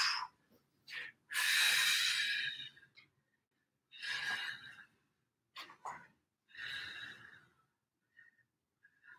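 A man breathing hard during an abdominal exercise. He blows out forcefully through the mouth about every two and a half seconds on the effort of each knee twist, with shorter, quieter breaths between.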